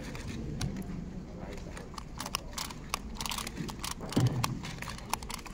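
Rubik's Clock puzzle being solved at speed: a quick, uneven run of sharp clicks as its pins are pushed and its dials turned, thickest from about two seconds in.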